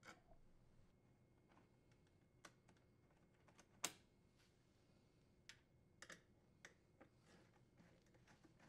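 Faint, irregular clicks and taps of a T15 Torx screwdriver and fingers on the dishwasher door's side screws as the screws are backed out, with one sharper click a little under four seconds in.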